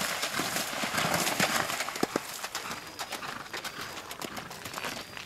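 A horse galloping through shallow river water, hooves splashing and striking in quick irregular knocks over a steady hiss, growing fainter in the second half as it gallops away.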